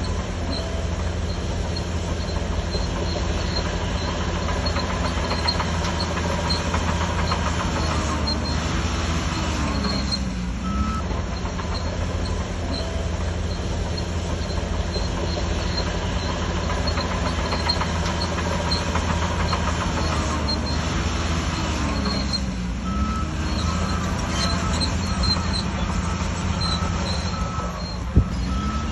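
Shantui DH17C3 crawler bulldozer's diesel engine running steadily under load, with its steel tracks clanking. Twice, about ten seconds in and again a little past twenty seconds, the engine note dips and climbs back. There is one sharp knock near the end.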